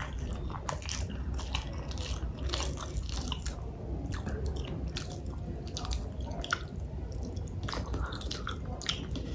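Close-miked chewing of instant noodles, with many small irregular wet mouth clicks.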